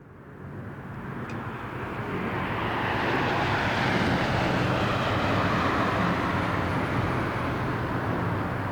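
Jet engines of a Boeing 737-900ER, CFM56-7B turbofans, rushing as the airliner comes in to land. The sound grows louder over the first three seconds, then holds steady.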